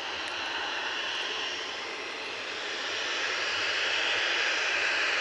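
Jet engines of a Boeing 737 airliner running at low taxi power as it turns on the runway, a steady hiss that grows louder about three seconds in as the aircraft swings nose-on toward the listener.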